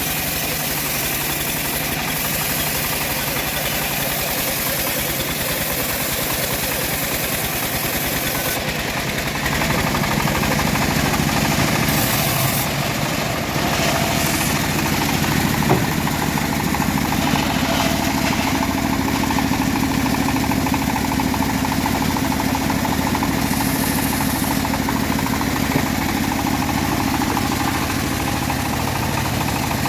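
Engine-driven homemade bandsaw mill running steadily as it saws through an old teak log. The sound grows louder about ten seconds in, and a steady hum sets in from about halfway.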